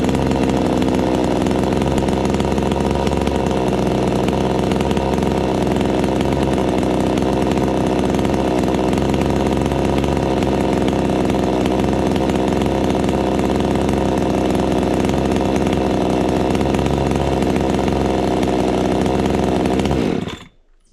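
Supmix 62 cc two-stroke chainsaw running steadily at idle, loud, with the idle set a bit high. It is switched off about twenty seconds in, and the engine cuts out abruptly.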